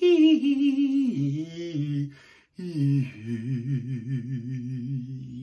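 A man's voice singing a wordless melody, holding long notes with a strong vibrato: higher notes first, a short break about two seconds in, then a lower, wavering held note.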